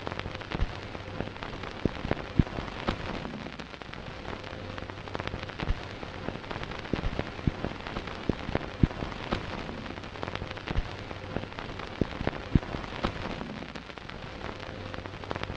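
Steady hiss with many irregular crackles and pops, the surface noise of old archival film sound.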